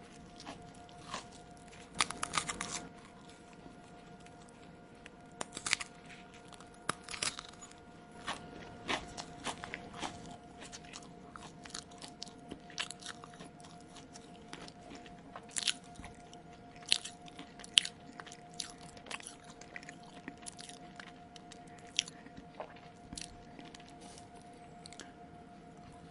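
Close-miked chewing of crunchy food: irregular crunches and clicks from biting and chewing, with a louder cluster about two seconds in and several sharp bites in the second half. A faint steady tone runs underneath.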